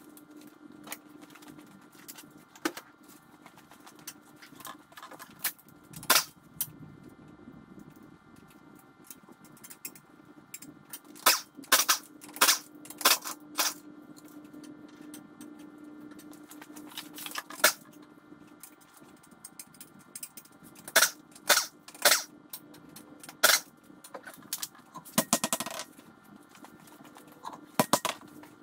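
Scattered sharp metallic clanks and clicks from removing a front wheel's bolts and taking the wheel off, in small clusters, over a steady low hum.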